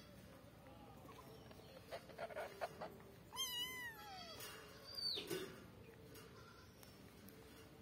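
Calico kitten mewing once about three and a half seconds in: a single high meow that rises and then falls away. A few soft knocks and scuffs come just before it, and a short high squeak follows about a second later.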